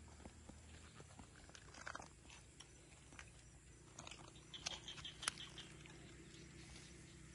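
Faint clicks and taps of bamboo chopsticks picking up food and setting it down on a flat cooking stone, a few around two seconds in and a quick cluster near the middle ending in one sharp click.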